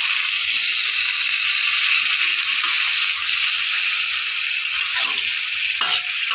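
Potatoes, ridge gourd and spice paste in hot mustard oil sizzling in a pan as water is poured in, with a spatula stirring the mix. The hiss is loud and steady, with a couple of faint spatula knocks near the end.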